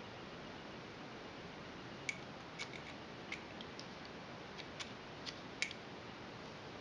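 Light clicks and taps as a metal Graflex lightsaber hilt is handled and turned over in the hands: about half a dozen short clicks from about two seconds in, over a steady faint hiss.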